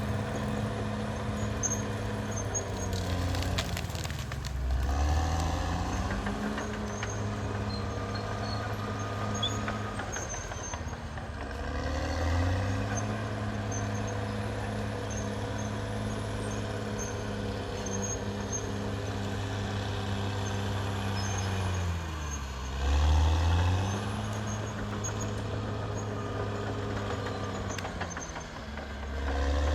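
Caterpillar D6R XL bulldozer's diesel engine running steadily under load. Four times, about 4, 11 and 22 seconds in and again near the end, its pitch sags as the engine lugs under the weight of soil on the blade, then picks back up. The dip about 22 seconds in is the loudest.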